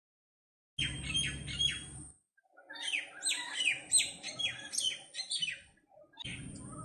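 Myna calling: short, falling chirps and whistles repeated in quick series, heard in three separate bursts that start and stop abruptly.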